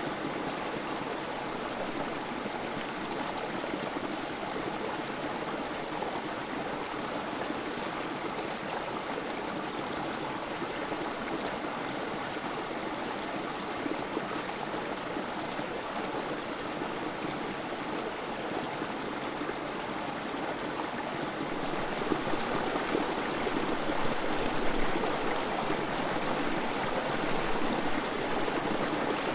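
Creek water trickling and splashing over rocks in a small cascade: a steady rush of running water that grows a little louder about three-quarters of the way through.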